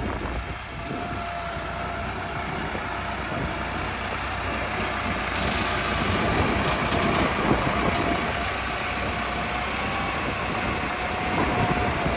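Case diesel tractor engine running steadily while its front-end loader raises a snowmobile, with a thin steady whine over the engine; it gets a little louder about halfway through. Wind buffets the microphone.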